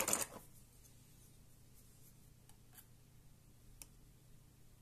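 Handling noise from a laptop mainboard being picked up and worked on by hand: a short rustle right at the start, then three faint clicks about a second apart, over a faint low hum.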